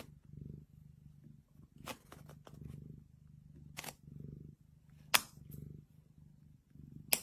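Domestic tabby cat purring close up, the low purr swelling and fading in slow waves. A few sharp clicks sound over it, the loudest about five and seven seconds in, while the cat mouths a paper sticky note.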